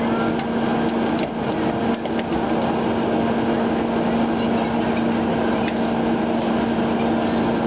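Engine-driven hydraulic power unit for Hurst rescue tools running at a steady drone, with a few faint clicks.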